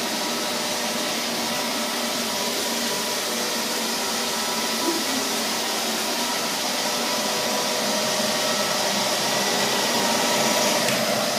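Neato XV-21 robot vacuum cleaner running: a steady motor and brush hiss with faint steady tones, growing a little louder near the end.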